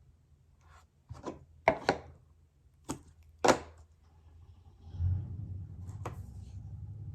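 Score tape and cardstock being handled on a craft table: about five short, sharp crackles and taps in quick succession. A low steady hum sets in about five seconds in.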